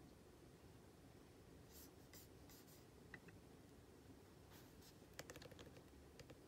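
Faint computer keyboard clicks over near-silent room tone: a few soft strokes, a single click about three seconds in, then a quick run of key presses around five seconds in as search text is deleted.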